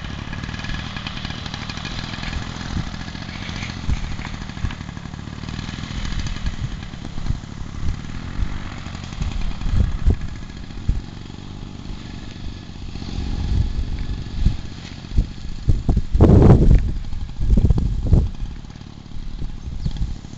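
Distant paramotor engine running steadily. Irregular gusts of wind buffet the microphone, growing stronger through the second half.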